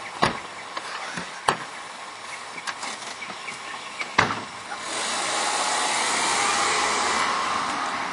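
Car doors knocking shut, three sharp knocks in the first half. From about five seconds in, the sedan drives off with a louder steady rush of engine and tyre noise.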